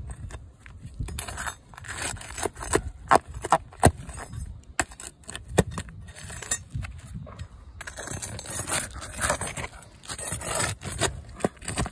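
Flat steel pry bar scraping and clicking under an asphalt roof shingle as it is worked in to pry the shingle up, with frequent sharp knocks of metal on the shingle.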